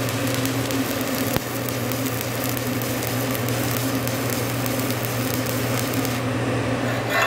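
Shielded metal arc (stick) welding: a hardfacing electrode burning in a steady crackle and sizzle over a steady low hum while a bead is laid over a 7018 buildup layer on steel plate. A brief click sounds about a second and a half in.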